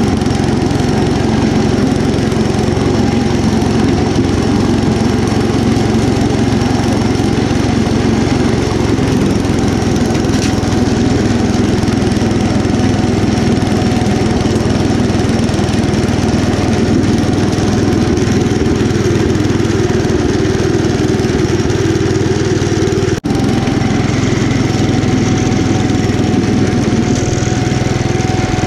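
The 10 hp Kohler K241 single-cylinder engine of a 1972 Gravely Commercial 10A running steadily under load, driving a snowblower attachment through deep snow. It drops out for a split second about three-quarters of the way through.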